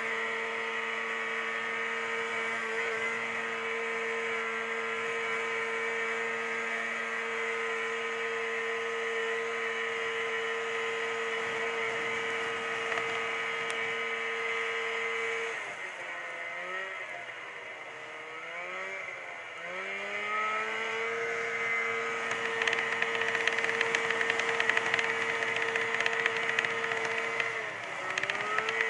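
Snowmobile engine running at a steady cruising speed. About halfway through, the revs drop and climb again several times before settling back. A rattling clatter joins the engine over the last several seconds.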